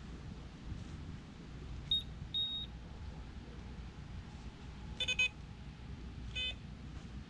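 Short electronic beeps: two high, single-pitch beeps about two seconds in, the second one longer, then a quick triple beep with a fuller, multi-tone sound about five seconds in and one more such beep near the end.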